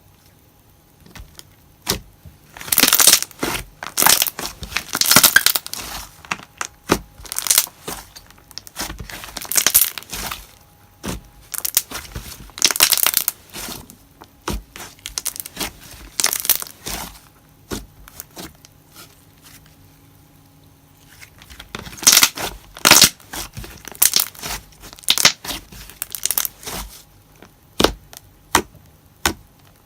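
Glossy slime (slimeog's 'Roasted Marshmallow') being squeezed and folded by hand, giving irregular clusters of wet popping bubble sounds and crackles. The sounds stop for a few seconds about two-thirds of the way through, then start again.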